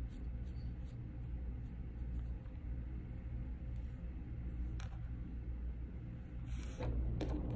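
Faint scratching and rustling of fingers and a comb working a Yorkshire terrier's long hair, over a steady low hum. A short hiss about six and a half seconds in.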